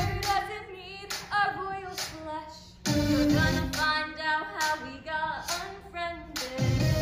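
Young female voices singing a pop musical-theatre number live on stage into handheld microphones. A deep low swell comes in about three seconds in and again near the end.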